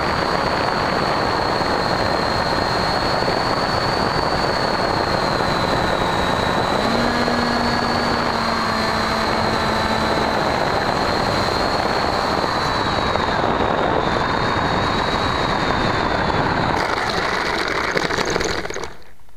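Bixler model plane's electric motor and pusher propeller heard through its onboard camera: a steady high whine over heavy wind rush in low flight. The whine stops about 17 seconds in as the plane settles into the grass, and the sound drops away just before the end.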